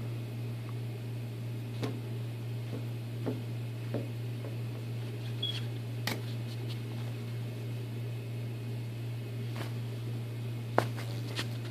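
A steady low hum in a room, with a few faint clicks scattered through and one sharper click near the end.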